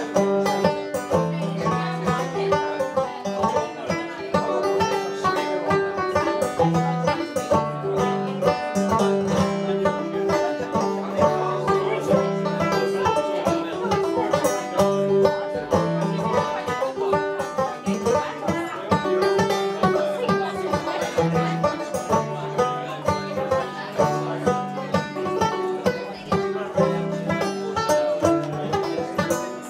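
Five-string banjo played clawhammer style: a Scottish tune in quick, even plucked notes, with lower notes changing underneath the melody.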